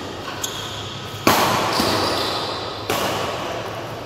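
Badminton rackets striking the shuttlecock during a rally: two sharp hits about a second and a half apart, each ringing on in the hall's echo.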